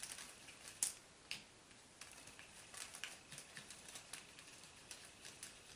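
Faint, scattered small clicks and taps of hands handling the plastic parts and packets of a DIY candy kit, with two sharper clicks in the first second and a half.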